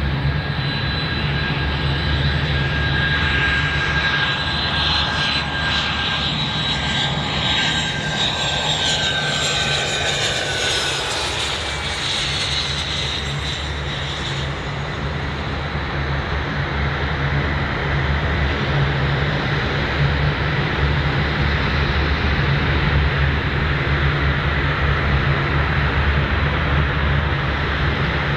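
Bombardier Learjet 45's twin turbofan engines on a landing: a high jet whine that drops in pitch as the aircraft passes, then a steady jet rumble as it touches down and rolls out along the runway.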